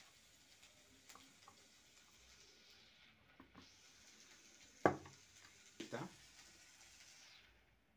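Faint steady hiss with light clicks of small parts and tools being handled at a workbench, then two short knocks on the tabletop about five and six seconds in.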